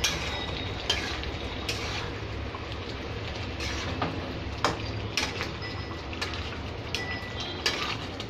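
Thick chicken and egg curry gravy bubbling in a steel kadai on a stove still turned up high: a steady low rumble with scattered pops and clicks about once a second.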